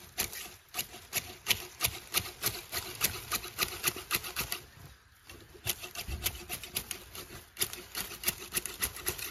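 Restored hedge shears snipping through clumps of long grass-like leaves, the blades closing in quick clicks about three times a second, with a brief pause about five seconds in.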